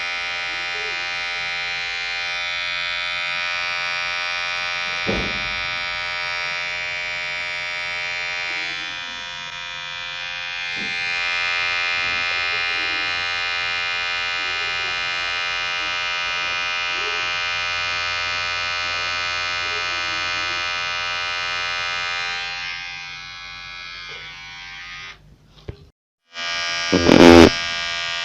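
Electric hair clipper buzzing steadily, a vibrating hum with many even overtones. Near the end the buzz fades and cuts out for about a second, a loud knock follows, and the buzz starts again.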